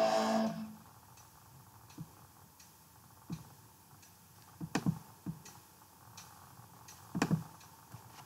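The electronic keyboard's last notes die away within the first half second, leaving faint steady ticking at about two ticks a second. Soft knocks and thumps come around the middle and again near the end, from the player moving and handling things.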